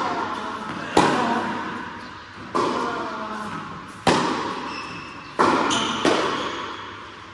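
Tennis rally: about five sharp racket-on-ball hits and ball bounces, one to one and a half seconds apart, each ringing on in the long echo of a large indoor hall.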